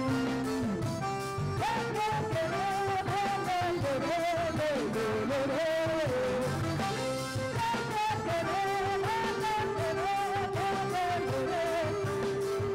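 Live band of keyboards, guitar and drums playing an upbeat Brazilian pop song, with a female lead vocal carrying a wavering melody over it.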